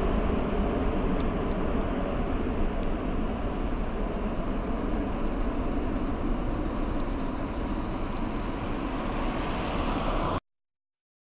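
Boeing 747-8F freighter's four GEnx-2B turbofan engines climbing away after take-off: a steady, broad jet rumble that slowly fades as the aircraft recedes. The sound cuts off abruptly near the end.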